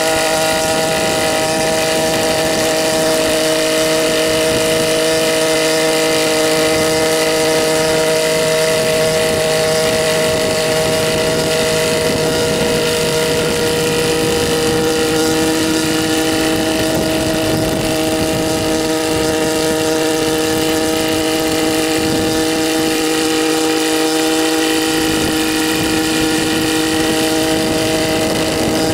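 Helipse HE 300 unmanned helicopter in flight, its 121.6 cc two-stroke engine and rotors running at a steady, even pitch.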